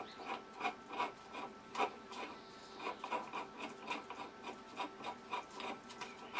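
Rhythmic scraping clicks, about three a second, as a part on a rotary head's toothed aluminium drive pulley is turned by hand to work it loose.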